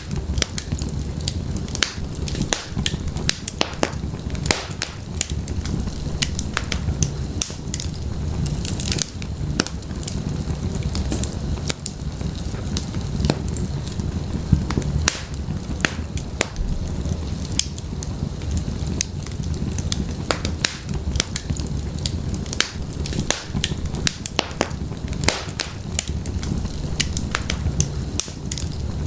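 Wood fire crackling in an open fireplace: a steady low rumble of burning logs with frequent irregular sharp pops and snaps from the firewood.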